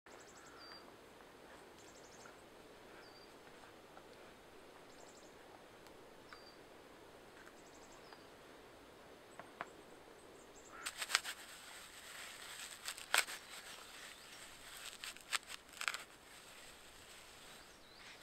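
Quiet forest ambience with a bird giving short high chirps every second or two. From about eleven seconds in, close sharp clicks and rustles of hands handling things, for about five seconds.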